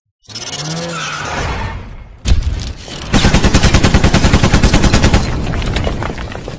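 Intro sound effects: a whoosh with a wavering tone, a sharp loud hit about two seconds in, then a rapid burst of gatling-gun fire lasting about two seconds that fades out.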